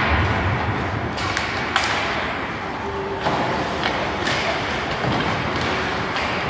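Ice hockey play in an indoor rink: a steady wash of rink noise broken by several sharp knocks and clacks of sticks, puck and boards.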